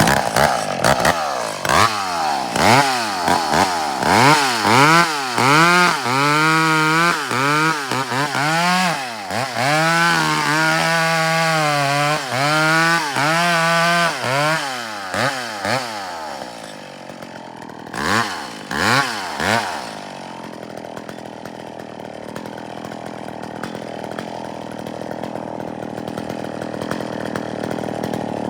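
Chainsaw revved up and down over and over, about once a second, while making the first cut into a rotten, leaning fir. For the last several seconds it runs steadier and a little quieter, slowly rising in pitch.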